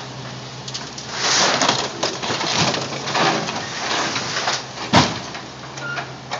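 Caterpillar 318C excavator setting a car body down and pressing its bucket into it: crunching, scraping sheet metal and cracking glass over the steady running of the excavator's diesel engine, with a sharp bang about five seconds in.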